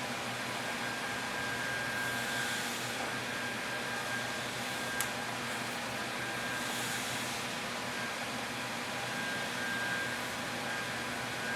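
Steady mechanical hum with a thin, steady whine, and one sharp click about five seconds in.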